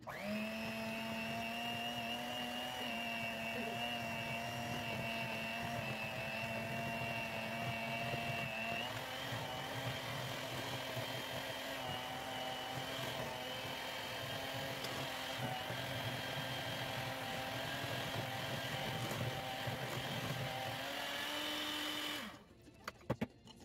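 Electric hand mixer running with its beaters in cookie dough ingredients in a glass bowl: a steady motor whine that steps up in pitch about nine seconds in, rises a little again near the end, then stops. A few sharp knocks follow just after it stops.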